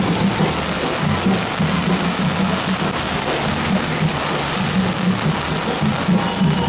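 Heavy rain pouring down as a steady hiss, with music playing underneath.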